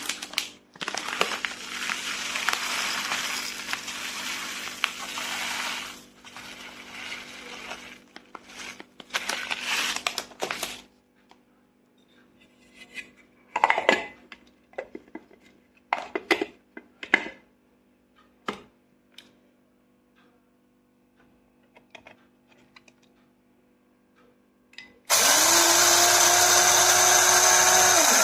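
NWOUIIAY 300 W electric blade coffee grinder: first a long noisy rustling stretch and a few scattered clicks and knocks as it is handled, then near the end its motor spins up and runs steadily at a loud, even whine.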